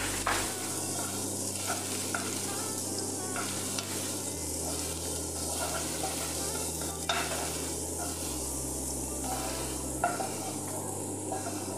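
Sliced onion, garlic and green chili sizzling in hot ghee in a nonstick pan, stirred with a wooden spatula that scrapes and taps lightly against the pan a few times.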